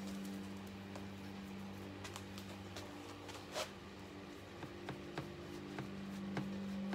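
Paintbrush dabbing acrylic paint onto canvas: a few soft, scattered taps, the clearest about three and a half seconds in, over a steady low hum.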